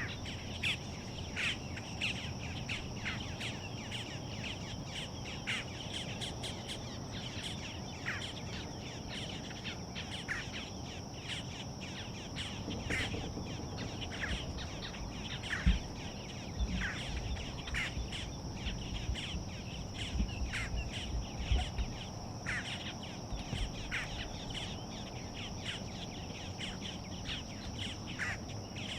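Lakeside outdoor ambience: a steady high-pitched insect trill with many short bird chirps scattered through it. A few low thumps, the loudest about two-thirds of the way through.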